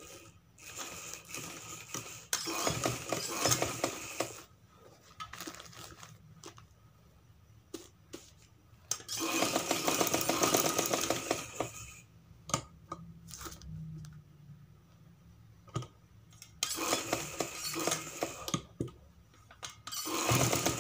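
Sewing machine stitching in three runs of rapid, even needle strokes, a few seconds each, with a few single light clicks in the pauses between.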